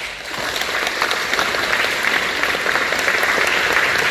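Audience applauding: the clapping grows louder over about the first second, then holds steady.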